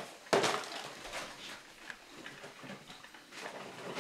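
Kitchen handling noises: things being picked up and set down on a counter, a sharp knock about a third of a second in, then scattered light clicks and taps.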